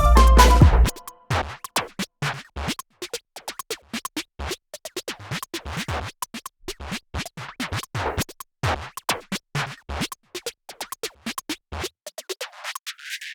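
Background electronic music: the full beat drops out about a second in, leaving a long run of rapid, irregular clicks and scratch-like ticks.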